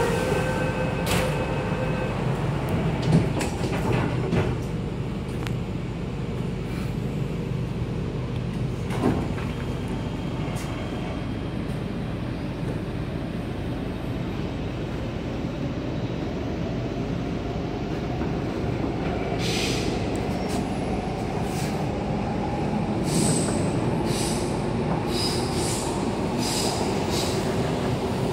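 Inside a Hong Kong MTR K-train carriage: the door-closing warning beeps sound for the first couple of seconds, then the doors shut with a knock about three seconds in. After a pause the train pulls away, its traction motor whine rising slowly in pitch over the rumble of the wheels, with wheel squeals and clicks near the end.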